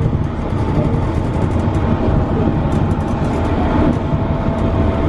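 Elevated train running, heard from on board: a steady low rumble with a thin motor whine that slides a little lower about halfway through.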